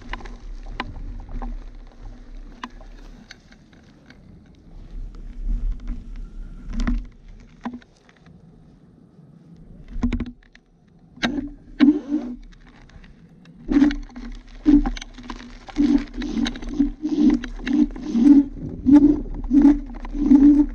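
Dualtron Thunder electric scooter ridden over rough grass and dirt: irregular knocks and rattles from the scooter as it goes over bumps, over a low throbbing hum. It goes quieter for a few seconds near the middle, then the knocking comes thicker and louder toward the end.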